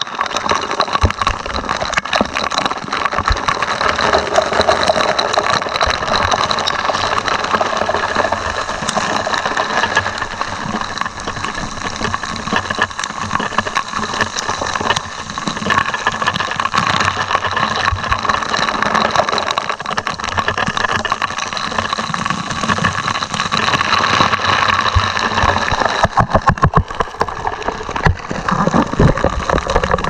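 A strong jet of water spraying onto a ship's deck and splattering over the microphone, a continuous hiss with many small crackles from droplets, over a steady machinery hum.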